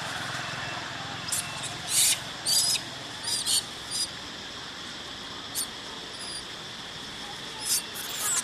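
Baby long-tailed macaque giving a run of short, shrill squeaks, mostly in the first half with a few more near the end.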